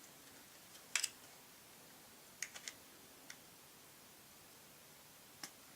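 Sharp little clicks and taps of metal and polymer parts as a frame pin is pressed into a Glock 19 Gen4 frame: a loud double click about a second in, three quick clicks at about two and a half seconds, then two single clicks.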